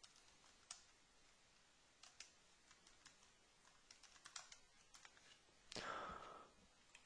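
Faint, scattered keystrokes on a computer keyboard as a short name is typed. A brief soft hiss of noise comes about six seconds in.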